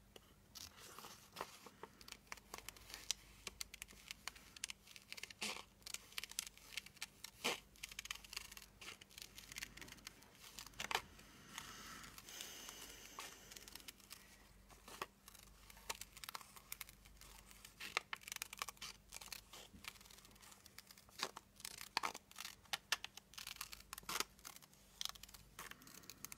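Paper being handled, cut and torn at a craft desk: irregular small clicks, snips and rustles of paper throughout.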